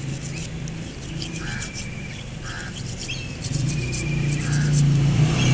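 Brush scrubbing a Toyota VVT-i oil control valve (VVT solenoid) in a bowl of cleaning fluid, with many short scratchy strokes. The valve is being cleaned to cure the Corolla's idle hunting up and down. Birds chirp now and then, over a low hum that grows louder near the end.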